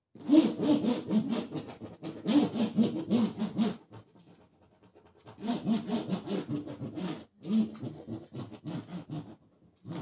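A hand rubbing hard and fast across packing tape on top of a cardboard box, scraping in rapid strokes. There are four spells of rubbing, with a short pause near the middle.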